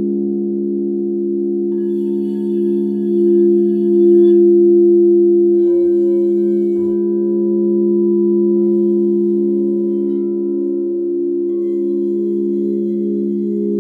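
Frosted quartz crystal singing bowls ringing together in several sustained, overlapping tones, their pitches beating against each other in a slow wobble near the end. Two soft low knocks come about six and seven seconds in.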